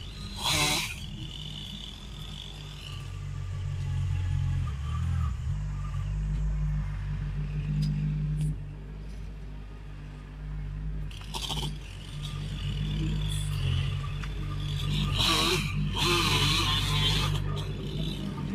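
Kubota tracked machine's diesel engine running and working under changing load, with a few sharp clanks and scraping as it clears land.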